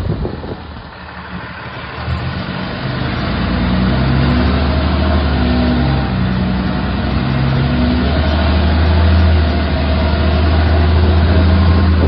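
Engine of a 2011 Dodge Ram rollback tow truck running steadily as the truck drives, getting louder over the first few seconds.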